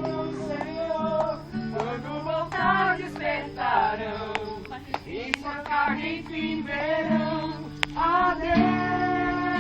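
Voices singing a worship song in Portuguese to acoustic guitar, with long held sung notes over steady strummed chords.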